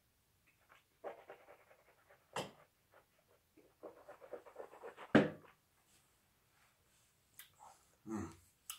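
Mouth and breath sounds of a man tasting a sip of whisky: short breathy puffs and lip smacks, a sharp click about two and a half seconds in, and a brief loud voiced exhale about five seconds in, with another breathy exhale near the end.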